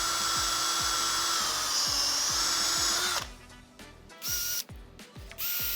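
Power drill with a 4 mm bit running steadily as it drills out a pop rivet, stopping about three seconds in, followed by two short bursts of the drill.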